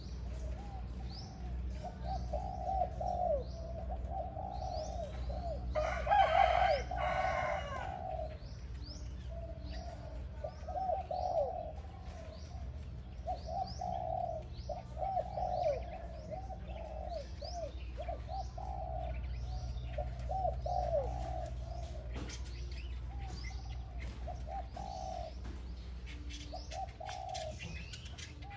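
Spotted dove cooing over and over in short low phrases, a decoy bird calling. Small birds chirp faintly and high above it, and a louder, harsher call breaks in about six seconds in, over a steady low hum.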